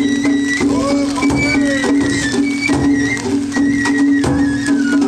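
Japanese festival float drumming: a large hanging taiko and smaller drums struck irregularly, with a high, stepped flute-like melody above and a steady hum underneath.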